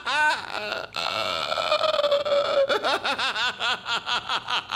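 A man laughing in rapid fits of about four pulses a second. Near the middle the laugh turns into one long strained note that sinks slightly in pitch, then the quick laughing starts again.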